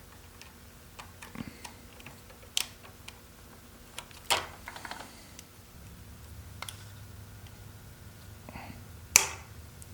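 Scattered sharp clicks and taps from a screwdriver and the old wall light switch being worked loose in its electrical box. The loudest click comes about nine seconds in, with another strong one a little past four seconds.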